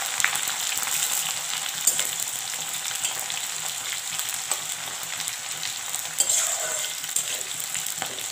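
Sliced onions sizzling in hot mustard oil in a kadai, with a metal spatula scraping and clicking against the pan now and then as they are stirred. They are in the first stage of frying towards golden.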